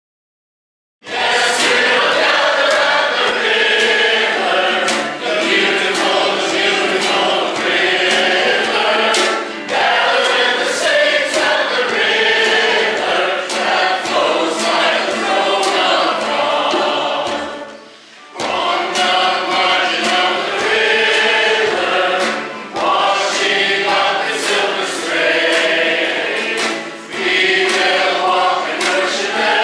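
A large congregation singing together, with a steady low beat about once a second under the voices. The singing starts about a second in and pauses briefly a little past the middle.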